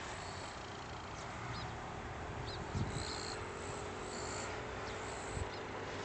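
Insects calling in short, high-pitched trills that come and go every second or so over a steady outdoor hiss, with two dull low thumps, one near the middle and one near the end.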